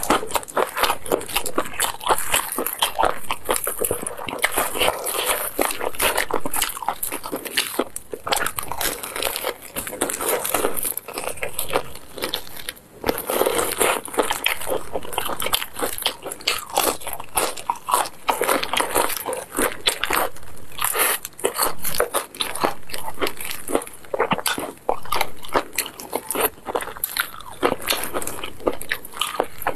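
Close-miked biting, crunching and chewing of crispy sauce-coated fried chicken: a dense, irregular run of crackling crunches that keeps going without pause.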